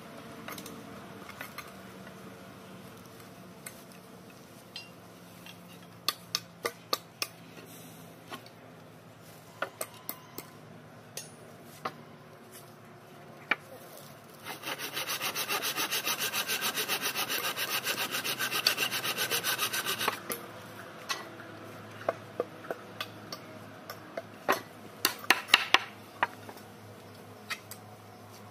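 Handsaw cutting through a wooden plank in rapid, even back-and-forth strokes for about six seconds midway. Before and after, scattered light taps and knocks of wood and tools being handled, with a cluster of louder knocks near the end.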